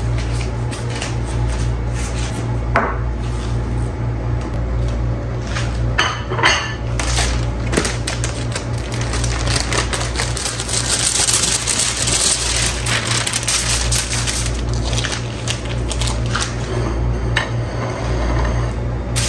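Background music with a steady low beat. Over it are a few sharp clicks about six seconds in, then a stretch of crinkling from kitchen handling on the countertop.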